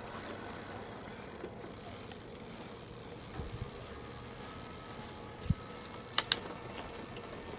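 A few small mechanical clicks and a knock from a bicycle being worked on, with two sharp clicks close together about six seconds in, over a steady background hum.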